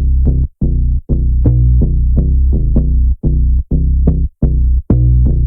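Electronic background music with a drum-machine beat and heavy bass, chopped by short gaps in a stuttering rhythm.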